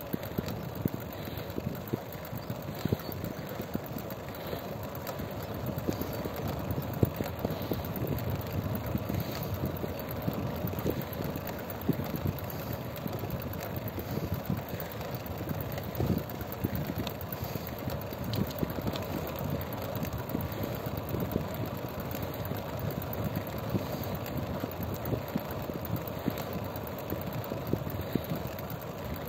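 A vehicle on the move: a steady engine and road rumble, with many small knocks throughout.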